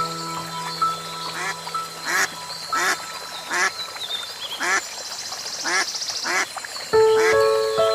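A series of short, repeated animal calls, about one a second, over background music with long held notes.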